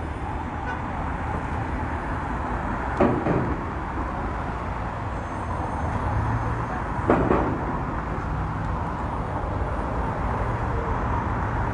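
Steady noise of street traffic, with two sharp knocks about three seconds and seven seconds in.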